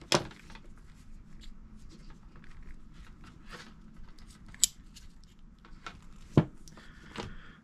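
Metallic brake pads and their spring clip being worked out of a SRAM Code disc brake caliper by gloved hands: small clicks and scrapes of metal parts, with a sharp click just after the start, another near the middle and a knock about six and a half seconds in.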